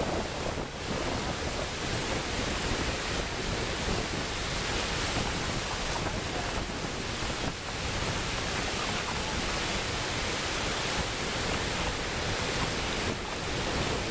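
Ocean surf breaking and washing up a sandy beach, a steady rushing wash of waves, with wind buffeting the microphone.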